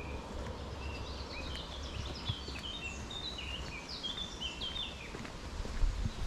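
A songbird singing a quick twittering song of short chirps, which fades out about five seconds in, over a steady low rumble.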